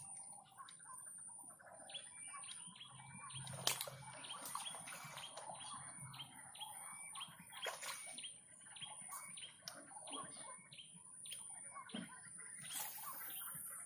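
Small birds chirping and twittering, with many short repeated chirps from more than one bird, over a steady high-pitched whine. A couple of sharp clicks stand out, about four and eight seconds in.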